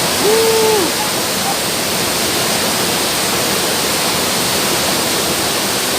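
Waterfall: a loud, steady rush of falling water, with a brief voice sound near the start.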